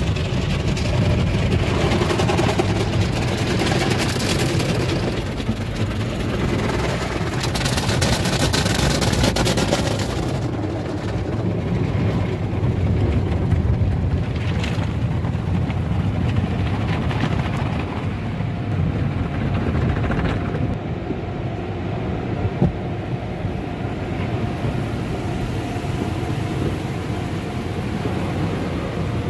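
Automatic car wash heard from inside a car's cabin: water jets spraying and beating on the glass and body over a steady low rumble. The spray hiss comes in strong surges through the first ten seconds or so, then settles to a duller, muffled wash as foam covers the windshield.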